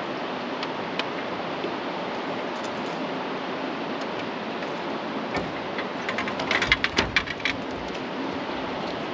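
Steady rushing noise throughout, with a quick run of sharp clicks and rattles about six to seven and a half seconds in.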